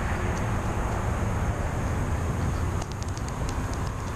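Steady outdoor noise of passing road traffic, with a low rumble underneath. About three seconds in comes a quick run of light, high ticks.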